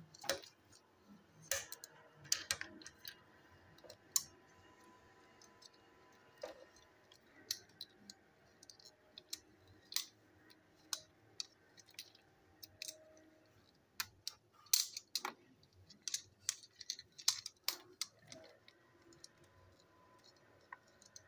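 Plastic toy train parts and their plastic packaging being handled, giving quiet, scattered light clicks and crinkles, a little busier about three quarters of the way through.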